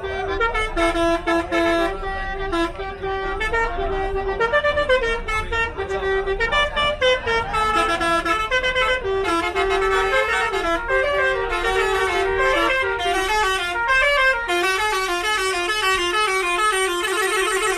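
Bus telolet horn (Basuri multi-tone horn) playing a fast melody of short stepped notes, then holding one long chord for the last few seconds.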